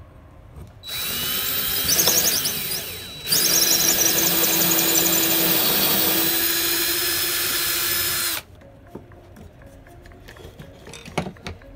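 Cordless drill boring through clamped pine boards: it spins up with a rising whine about a second in, dips briefly near three seconds, then runs steadily for about five seconds more and stops. A few light knocks near the end.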